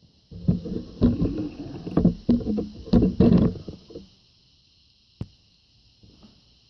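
Aftermarket exhaust parts being handled and worked into place: a run of knocks, clunks and scraping for about three and a half seconds, then a single sharp click about five seconds in.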